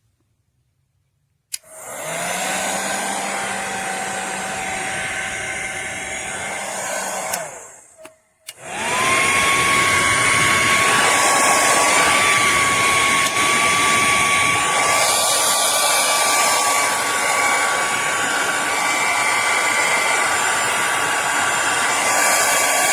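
Revlon infrared ionic hair dryer switched on, its fan blowing with a steady motor whine. About eight seconds in it cuts out briefly, then comes back louder, its whine rising to a higher pitch as the motor spins up, and it runs steadily to the end.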